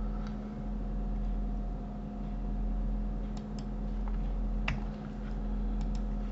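Steady electrical hum from the recording setup, with a few soft clicks of computer input in the second half.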